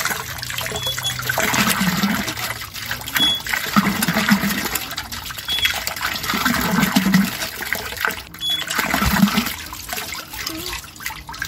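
Water gushing and splashing from a hand pump being worked, the flow surging with each stroke about every two seconds.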